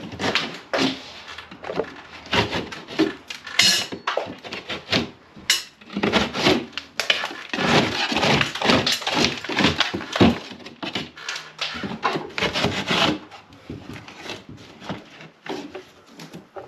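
Flathead screwdriver gouging and prying at old wooden window trim along the ceiling, wood scraping, cracking and splintering in irregular strokes and knocks. The strokes come thickest through the middle and thin out near the end.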